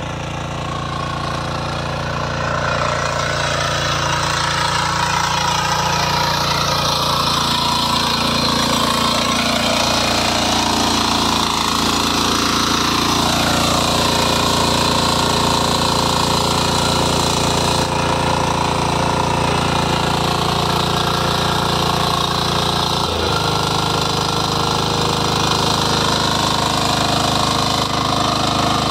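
Walk-behind power weeder's small engine running steadily as its rotary tines work the soil between maize rows, growing louder over the first couple of seconds, with one brief dip in engine speed late on.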